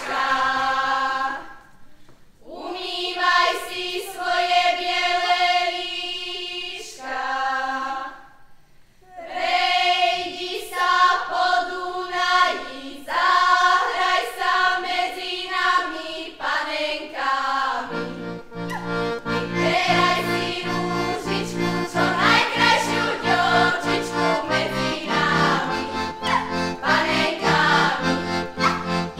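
Unaccompanied female folk singing in long held phrases with short pauses between them. About two-thirds of the way through, a folk band strikes up beneath it with a steady rhythmic accompaniment.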